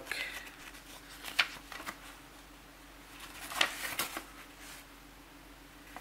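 Paper rustling as a folded instruction leaflet is handled and unfolded, with sharp crackles about a second and a half in and again around three and a half to four seconds.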